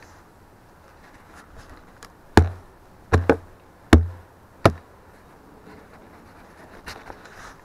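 Five sharp wooden knocks in about two seconds, a little past the middle: a gloved hand striking a wooden beehive inner cover, knocking clinging bees off the board.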